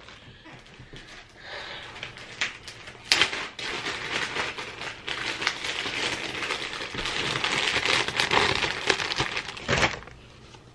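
Plastic Ziploc bag crinkling and rustling as it is handled and pulled apart to get frozen chew toys out, with a sharp knock about three seconds in and another near the end.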